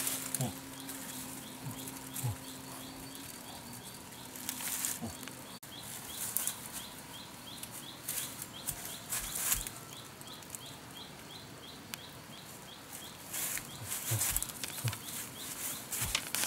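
Fern fronds and dry sticks rustling and crackling as a person moves through them, in uneven bursts that grow busier near the end, with a faint high chirp repeating about three times a second behind them.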